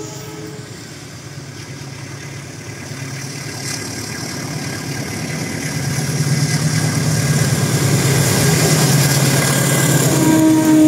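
Two KAI diesel locomotives hauling a long container freight train approach and pass, their engines running with a steady drone that grows louder as they near. Just before the end a locomotive horn begins to sound, a held note.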